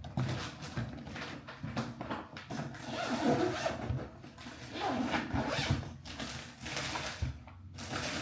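A zipper being drawn open and plastic and fabric rustling as a bag of clothes is handled, in a string of irregular swishes.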